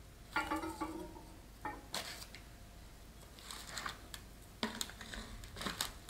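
Hands handling a potted fern: a ceramic pot knocking and scraping in a plastic tray, with crackly rustles, in four short bursts and a brief ring at the first one.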